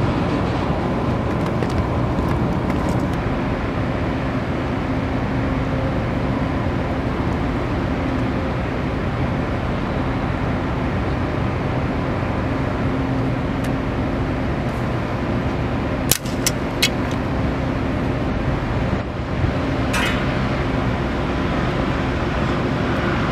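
Steady outdoor ambient rumble, with a few short clicks in the second half.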